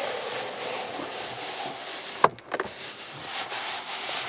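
Steady rain falling on the car, an even hiss, with one sharp knock about two seconds in.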